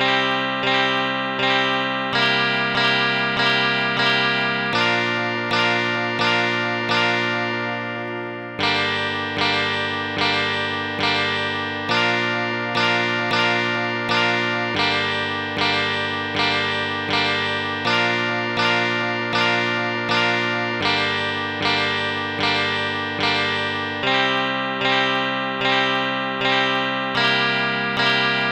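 Chords played on a phone chord app with a plucked, guitar-like sound over a held bass note. The chords are struck in a steady rhythm about twice a second and change every couple of seconds, with one chord left to ring longer about eight seconds in.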